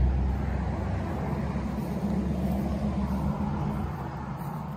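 A steady low outdoor rumble with a light hiss over it, easing off about three seconds in.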